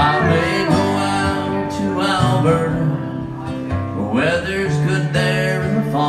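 Live acoustic guitar and pedal steel guitar playing an instrumental passage of a country-folk ballad between sung lines, with a few sliding steel notes partway through.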